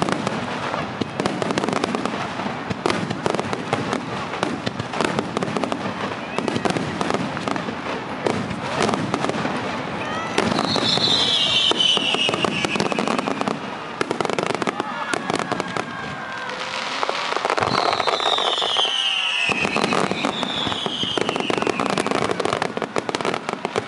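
Fireworks finale: many aerial shells and ground fountains going off together in a dense, continuous crackling and popping. Three long whistles falling in pitch cut through it, the first about ten seconds in.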